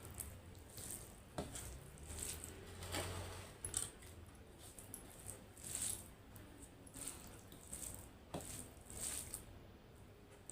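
Quiet eating sounds of a meal of rice and achari chicken: chewing and mouth noises with a few sharp light clicks scattered through it.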